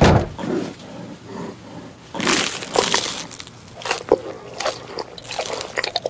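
A sharp knock at the start, then irregular crackling and crunching, thickest from about two seconds in, like something brittle being broken.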